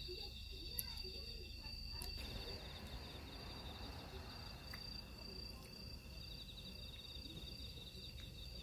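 Night insects trilling steadily at several high pitches, one of them pulsing, over a steady low rumble.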